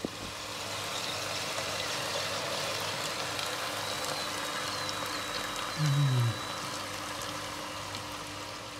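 Steady rushing air from a Ninja Foodi MAX Dual Zone air fryer's fan. About six seconds in, a brief low sound slides down in pitch.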